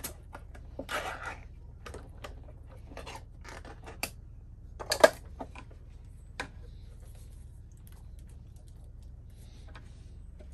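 A spatula scraping cherry pie filling out of a tin can into a metal baking pan, with scattered clicks and light knocks of the can and spatula. The loudest knock comes about five seconds in.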